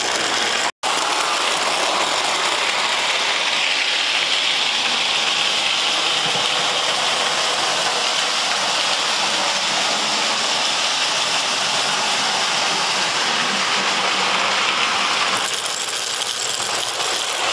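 Tinplate model trains running on metal three-rail track: a steady metallic rattle and whir of wheels and motors, with a brief break about a second in.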